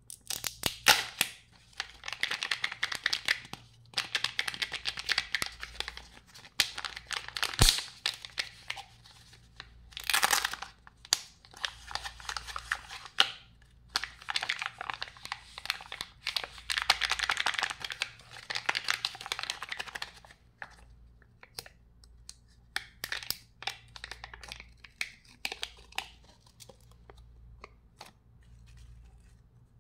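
Kinder Joy egg's plastic wrapper being torn and crinkled by hand, in long crinkling stretches broken by sharp crackles. About two-thirds of the way in the crinkling thins out to scattered crackles as the egg's halves are handled and a cup's sealing lid is peeled back.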